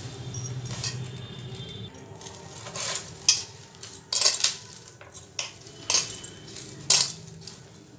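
Hands kneading dough in a metal bowl: the dough rubs and presses against the bowl, with about six sharp clinks from glass bangles on the kneading wrists knocking against each other and the bowl.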